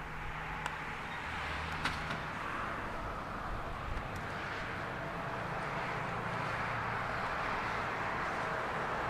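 Jet airliner engine noise: a steady rushing roar that grows slowly louder, with a few faint clicks in the first few seconds.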